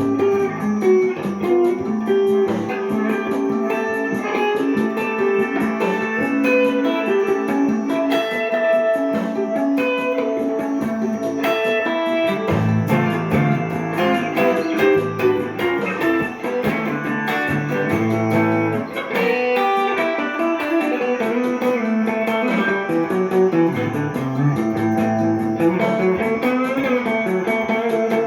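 Gibson 339 Custom semi-hollow electric guitar improvising with a clean jazz tone and Indian-flavoured phrasing, in quick runs of single notes. Lower bass notes come in about halfway through and again near the end.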